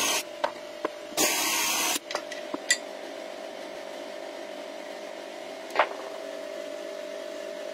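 Electric drill with a flat-bottomed boring bit cutting into wood in two short bursts, the second lasting under a second. After that, a few sharp clicks and knocks over a steady hum.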